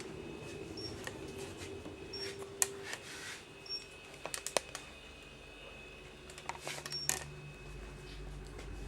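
Digital camera taking photos: scattered sharp shutter clicks, some in quick clusters, with short high beeps from the camera. A faint steady hum runs underneath.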